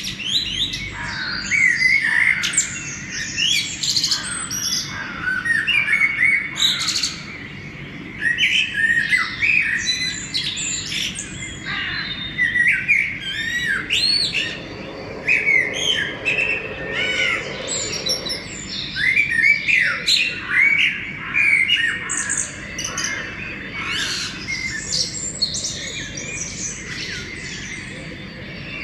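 Pre-dawn chorus of many birds chirping and singing over one another, a constant overlapping mix of short whistled notes and trills with an occasional harsher squawk.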